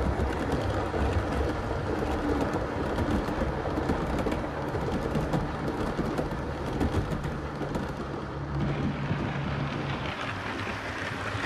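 7mm-scale model trains running past close by: a steady rumble and rattle of wheels on the track, with a low electric motor hum that shifts in pitch a little near the end.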